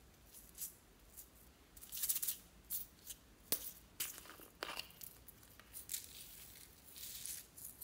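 Small plastic jar of pink glitter beads handled and shaken out: its twist cap clicks open and the beads rattle inside as they are poured, a string of short, sharp rattles and clicks, loudest about two seconds in.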